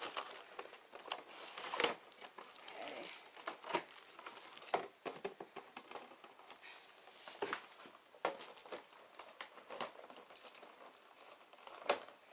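Box packaging crinkling and rustling in irregular crackles as action figures are worked out of it by hand.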